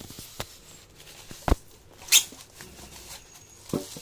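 Plastic bag crinkling and rustling as it is pulled off a boxed water pump, with a knock about one and a half seconds in, a loud crackle of plastic just after it, and another knock near the end.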